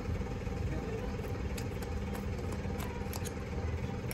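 A steady engine-like hum, as of a motor idling, with a few faint clicks of pliers working a small metal can.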